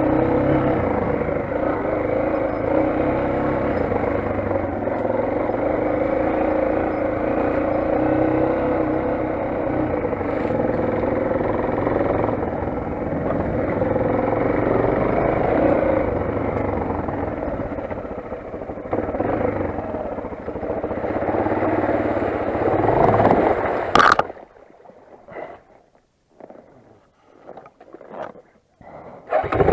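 Motoland XR 250 enduro motorcycle's single-cylinder engine running steadily under way, rising briefly just before it cuts off suddenly about 24 seconds in; a few faint short sounds follow, and the engine sound returns right at the end.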